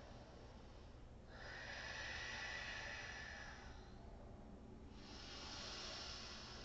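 A woman breathing slowly and audibly through her nose: one long, soft breath beginning about a second in and lasting about two and a half seconds, and another beginning about five seconds in.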